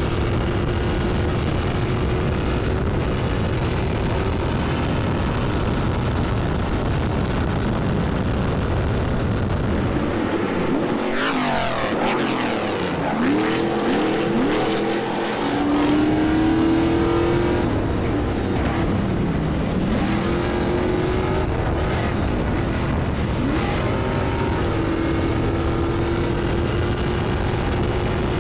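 Stadium Super Truck race engines running at speed, a steady engine drone throughout. In the middle, trucks pass close by, their engine pitch climbing and dropping repeatedly as they accelerate and sweep past.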